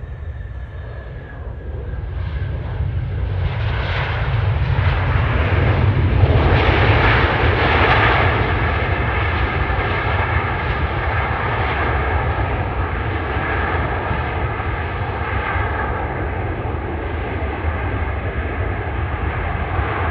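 Boeing 757's jet engines during the landing rollout just after touchdown: the engine noise swells over the first several seconds, peaks about six to eight seconds in, then holds steady with a whining tone over a low rumble as the airliner slows down the runway.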